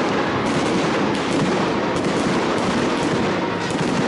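Aerial fireworks exploding in a dense, unbroken barrage of rapid bangs and pops.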